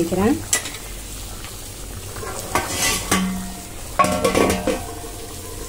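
A metal ladle stirring a pot of simmering curry, scraping and clinking against the metal pot, with a few sharp knocks and a brief ringing clatter about four seconds in.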